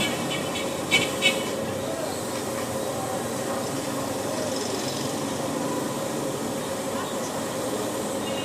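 Village street ambience: a steady mix of distant voices and traffic, with two short, sharp high-pitched beeps about a second in.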